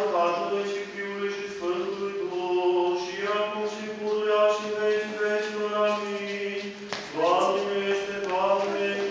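Orthodox liturgical chant of a baptism service, sung by men's voices in long held notes over a steady low drone note, with short breaks between phrases.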